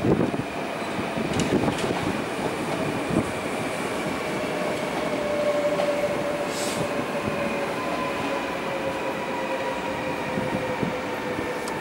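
NS electric passenger train running through the station, with a steady whine of several tones that slowly drops in pitch, and a few light clicks from the wheels.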